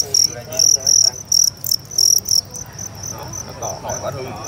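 Male fighting field crickets chirping: loud, short, high-pitched chirps about three a second, which stop about two and a half seconds in.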